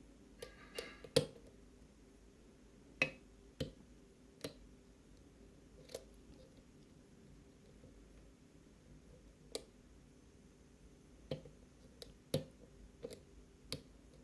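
Lock picking on a 5-pin Iseo pin-tumbler cylinder: a dozen or so short, sharp metallic clicks and taps at irregular intervals as the pick and tension tool work the pins. The loudest clicks come about a second in and at about three seconds.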